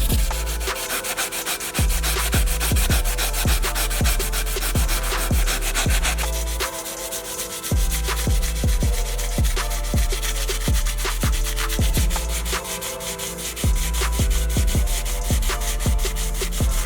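Sandpaper rubbing back and forth on a 1:24-scale model car's body, over background electronic music with a steady kick-drum beat.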